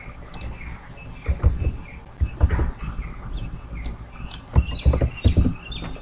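Computer mouse clicks and keyboard taps, with a few low thumps on the desk, as a search is typed into a chart's menu. Small birds chirp faintly in the background.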